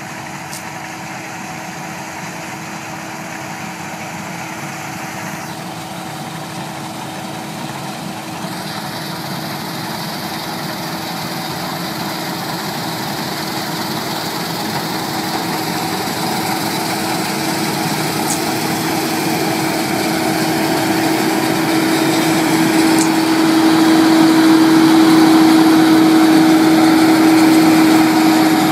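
Case IH 2688 combine harvester running while it harvests grain: a steady mechanical hum with one fixed tone, growing steadily louder as the machine comes close.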